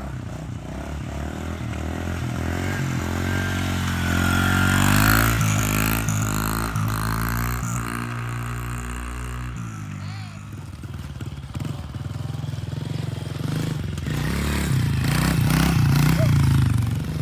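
Honda CRF110F dirt bike's small single-cylinder four-stroke engine revving as it rides past, its pitch climbing and then falling away. Near the end it revs hard close by as the rider lifts the front wheel into a wheelie.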